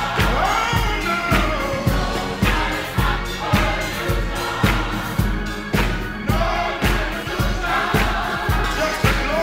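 Gospel mass choir singing over a disco beat, with a steady four-on-the-floor kick drum at about two beats a second.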